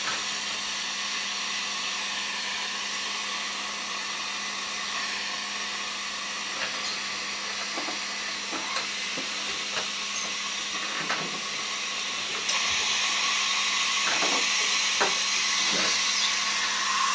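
Steady airy hiss with a low hum from dental air and suction equipment while the teeth are being powdered for a CEREC digital impression. It grows a little louder about twelve seconds in, with a few faint clicks.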